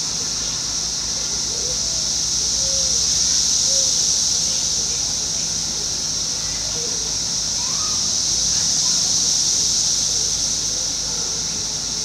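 Brood X periodical cicadas singing in chorus: a loud, steady, high-pitched buzz that swells and eases slowly every few seconds. Faint short chirps sound beneath it.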